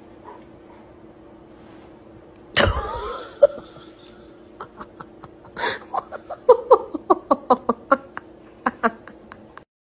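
A sudden loud noise about two and a half seconds in, then a person laughing in short, rapid bursts, several a second, from about five seconds on.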